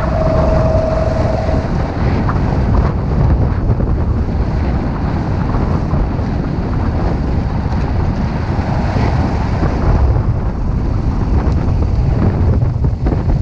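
Loud rush of wind buffeting the microphone of a bicycle descending fast downhill, a steady low rumble. A steady squeal, most likely from the brakes being dragged on the descent, cuts off about a second and a half in.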